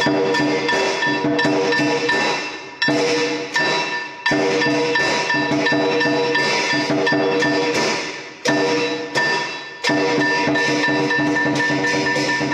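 Percussion music: quick, sharp strikes over steady ringing tones, with short breaks about 3, 4, 8 and 10 seconds in.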